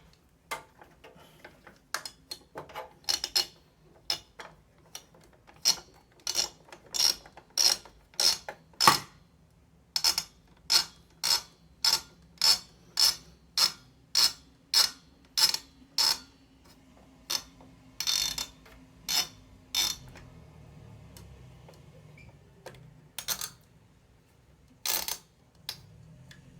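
A screwdriver clicking as the spring-loaded mounting screws of a stock AMD CPU cooler are loosened. Sharp clicks come sparsely at first, then in a steady run of about two a second for some ten seconds, then a few more near the end.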